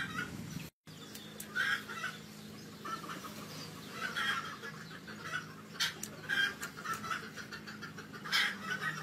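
Chickens clucking, short calls repeated every second or so.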